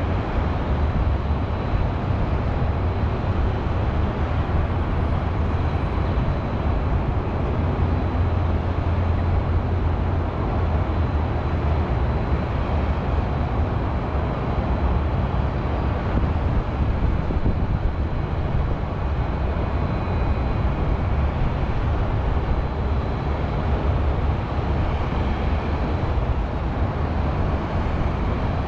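Steady hum of city highway traffic, a constant deep rumble with a hiss on top and no single vehicle standing out.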